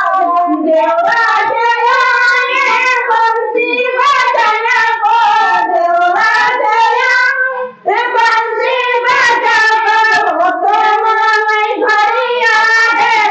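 Women singing a traditional ceremonial folk song together, unaccompanied, with a brief break about eight seconds in.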